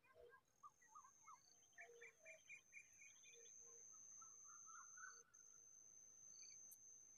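A small songbird at its nest of chicks giving short chirps and a quick run of half a dozen notes, then a buzzy call about five seconds in. Behind it, a steady high-pitched whine runs most of the way, breaking briefly about five seconds in.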